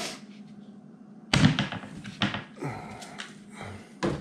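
Blue one-handed bar clamps being released and taken off a pine board: a sharp clack about a second and a half in, the loudest, then several lighter knocks and clicks, and another clack near the end, over a faint steady hum.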